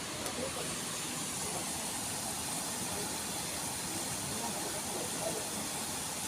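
Steady rushing background noise, with faint distant voices in it.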